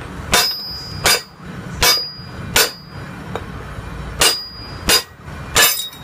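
Hammer blows on a steel drift driving the wheel hub out of a Peugeot 206 steering knuckle: seven sharp metal-on-metal strikes about three-quarters of a second apart, with a short pause midway. Some of the blows leave a brief high ring.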